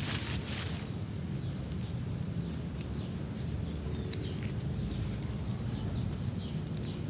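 Steady high-pitched insect drone, with a brief rustle in the first second and a single sharp click about four seconds in.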